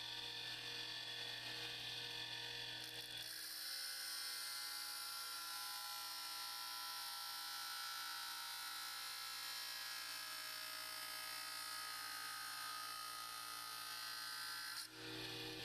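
Bench grinder running steadily, with a harsher hiss from about three seconds in until near the end as a high-speed steel tool blank is ground against the wheel.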